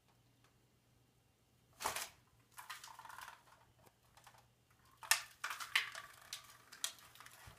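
Disposable cups crackling and crunching as they give way under a wooden board that a person is standing on. A sharp crunch about two seconds in, then from about five seconds in a run of snaps and crackles.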